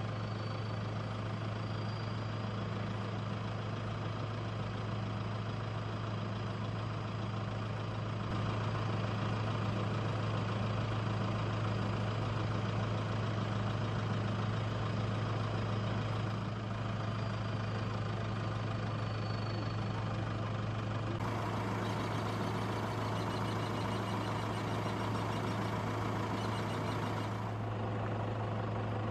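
Vehicle engine idling steadily: a constant low hum.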